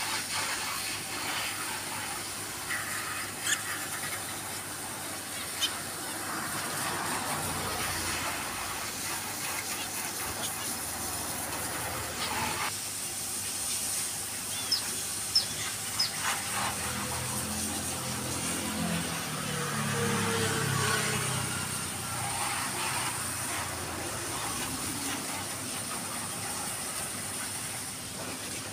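Steady background hiss with a few faint short clicks.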